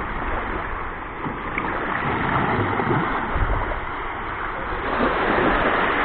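Small sea waves washing in and out over a shallow sandy, shell-strewn shore at the water's edge: a steady wash of surf with a low rumble beneath.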